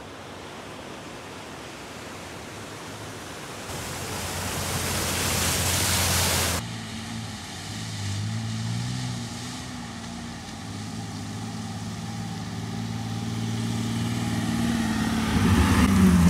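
Vehicle driving, engine and tyre noise in cut-together clips: a rush of noise builds and stops abruptly about six seconds in, then an engine drone whose pitch wavers grows louder toward the end.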